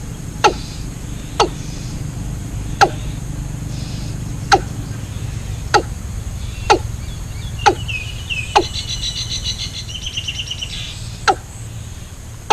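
Sharp strikes about once a second over a steady low hum, with a short burst of bird chirping near the middle.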